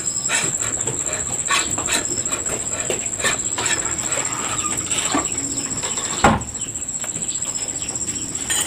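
Hands working on a small soybean grinder's metal housing and pulley: a run of small clicks and scrapes, with one heavier thump about six seconds in. A steady high-pitched whine sounds underneath.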